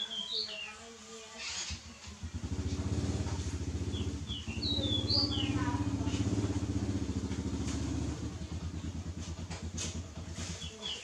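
An engine running steadily, coming in about two seconds in and fading away near the end. A bird chirps a few times.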